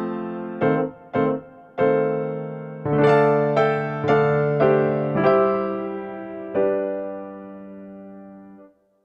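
Background music: an electric piano playing struck notes and chords that ring and die away. The last chord fades out just before the end.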